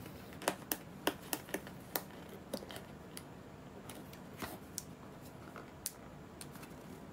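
Small kraft cardboard gift box and its paper packaging handled and opened by hand: a run of sharp clicks, taps and crinkles, thick in the first couple of seconds and sparser after.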